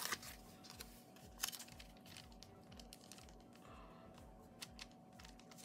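Faint paper handling: stickers and their backing being peeled, tapped and set on a planner page, with a few light clicks and soft rustles, over faint background music.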